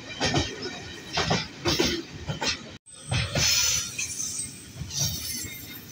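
Train running along the track with repeated sharp metallic clanks and rattles, about one or two a second, with a ringing after each. The sound cuts out for an instant about halfway through.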